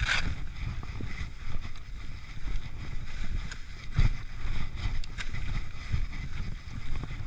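Skis sliding and scraping over snow, with wind rumbling on the camera's microphone and a couple of sharp knocks, one right at the start and one about four seconds in.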